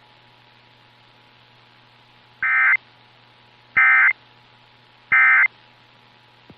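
Three short bursts of Emergency Alert System digital data tones, about a second and a half apart: the end-of-message code that closes an EAS test, heard over AM radio. A steady low hiss and hum runs between the bursts.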